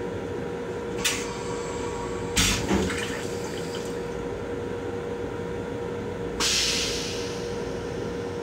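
Stainless-steel toilet in a Long Island Rail Road M7 railcar flushing: a few short sharp bursts in the first three seconds while water rinses the bowl, then a hissing rush about six and a half seconds in that fades away. A steady hum runs underneath.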